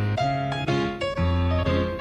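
Background music: keyboard chords over a bass line, a new chord about every half second.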